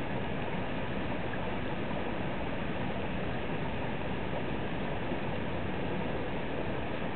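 Steady rush of water in a dam's plunge pool with spill flow coming through, an even noise without breaks or single events.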